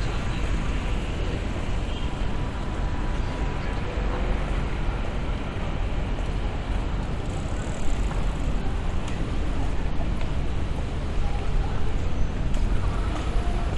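City street ambience: steady traffic noise with a low rumble, with indistinct voices of passers-by.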